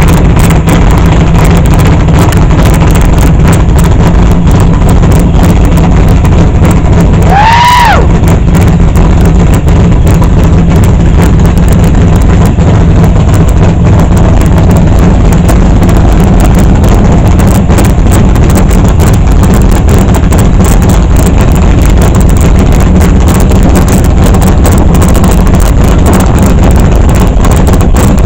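Steady, loud, distorted rumble of a muscle car's engine idling through a loud exhaust close to the microphone, overloading it. About seven seconds in, a short whistle-like tone rises and falls.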